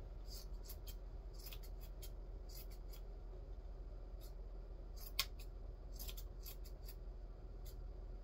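Scissors snipping through yarn, trimming a yarn pom-pom into shape. Faint, irregular runs of snips, with a pause in the middle and one sharper snip about five seconds in.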